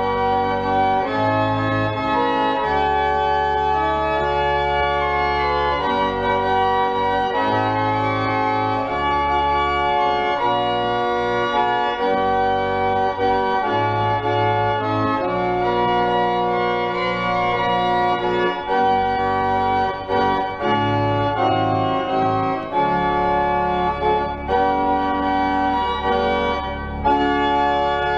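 Pipe organ playing sustained chords that change every second or two, over deep pedal bass notes.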